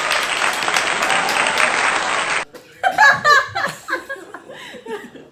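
Applause, dense and steady, cutting off abruptly about two and a half seconds in. Talking and laughter follow.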